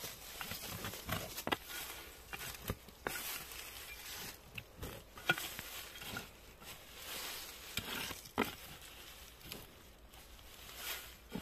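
Footsteps crunching through dry leaves and undergrowth: irregular rustles and crackles with a few sharper snaps.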